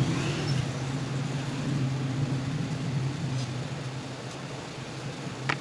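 Steady low mechanical hum over background noise, slowly fading, with a single sharp click near the end.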